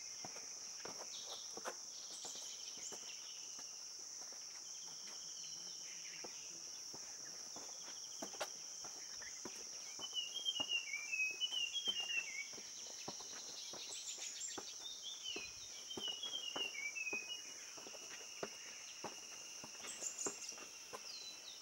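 A steady, high-pitched drone of insects in tropical forest, with a bird giving quick runs of chirping notes, first about halfway through and again a few seconds later. Scattered light taps sound throughout.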